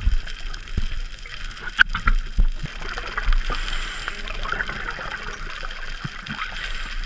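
Underwater sound heard through a diver's camera housing: a wash of bubbling and gurgling water with scattered sharp clicks, two louder ones about two seconds in.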